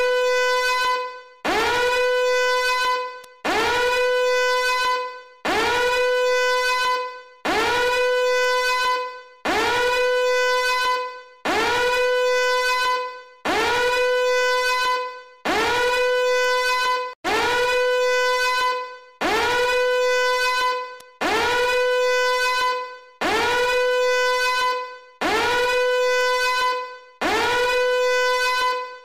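Fire alarm horn sounding a repeating evacuation tone: each blast slides quickly up in pitch, then holds steady for about a second and a half. The blasts come about once every two seconds, about fifteen in all.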